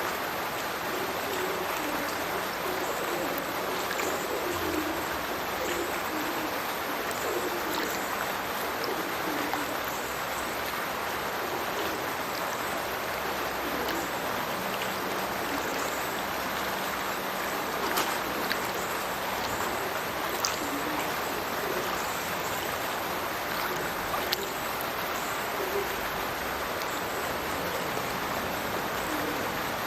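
Steady rush of a burn falling from its culvert into a river: a constant hiss of pouring, splashing water, with a few sharper splashes standing out. A run of short low tones repeats through the first third.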